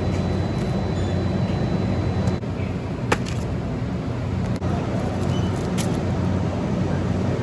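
Steady road and engine rumble of a Mini Cooper Paceman heard from inside the cabin while driving, with a single sharp click about three seconds in.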